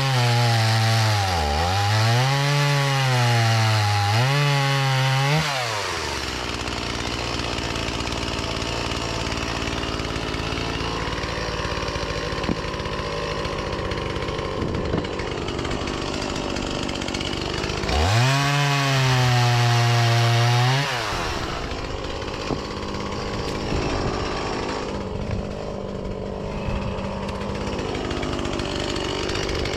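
Stihl two-stroke gasoline chainsaw cutting fruitwood at full throttle, its pitch dipping and rising under load. About six seconds in it drops back to a lower speed; around eighteen seconds in it revs up again for a few seconds, then drops back.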